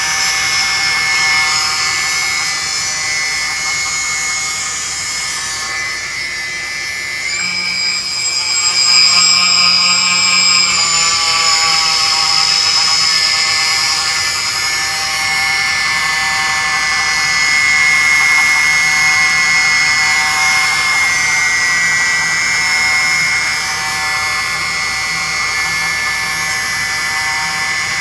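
HobbyKing Nova quadcopter's brushless motors running with a steady high whine, in a video about motors that are hard to start and sometimes stop. The pitch shifts for a few seconds about a quarter of the way in, then settles back.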